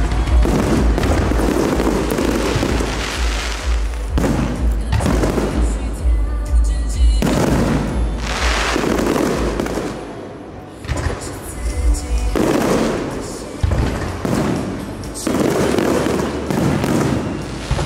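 Aerial firework shells bursting overhead in a rapid series of booms and bangs, with music playing alongside.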